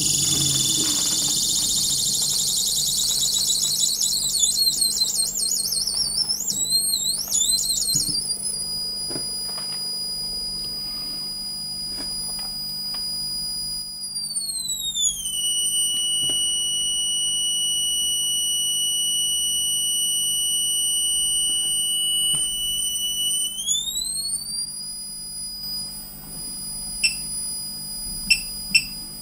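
High-pitched electronic whine from the Bedini self-oscillating motor circuit, several tones sounding together. The pitch wavers at first, then slides down and later back up as the circuit's potentiometer is turned, over a low steady hum, with a few sharp clicks near the end.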